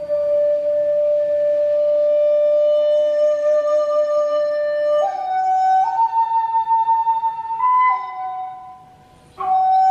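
Violin playing a slow melody of long held notes. One note is held for about five seconds, then a few shorter notes step upward, and after a brief pause near the end a new note begins.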